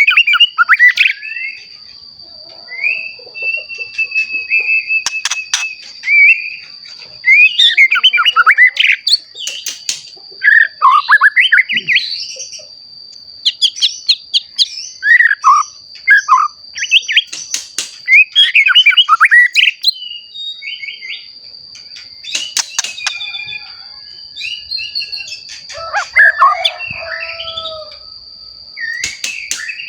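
White-rumped shama (murai batu), a young bird just coming into adult plumage, singing loudly in a rapid series of varied whistled and chattering phrases with short pauses between them. A steady high-pitched tone runs underneath.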